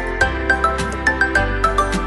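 Background music: a light melody of quick, short notes, about four or five a second, stepping up and down over a held low bass.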